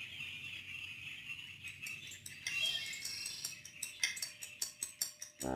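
Crickets chirping steadily, with a fast regular run of short high clicks from about halfway through.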